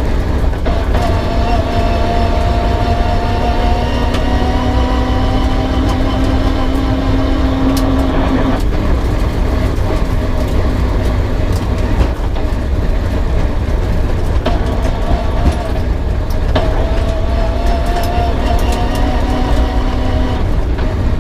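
Peugeot 306 rally car's engine heard from inside the car under a heavy low road rumble, its note climbing slowly for about eight seconds, easing off, then pulling again in the second half.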